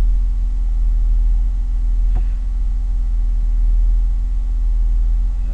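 BMW E34 520i's straight-six engine idling at about 800 rpm while still cold, heard as a steady low hum.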